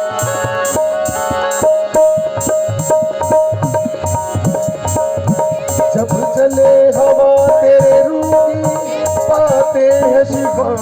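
Instrumental worship-song intro: a steady percussion rhythm under a held melody line, with a sliding melodic part coming in over the second half.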